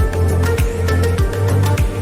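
Background music with a steady beat: a kick drum about every 0.6 seconds over a held bass line, with hi-hat ticks and sustained mid-range notes.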